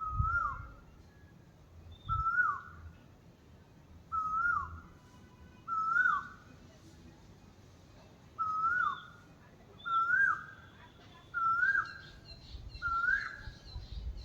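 A bird's whistled call repeated eight times, roughly every one and a half to two seconds; each call is a short level note that drops sharply at its end.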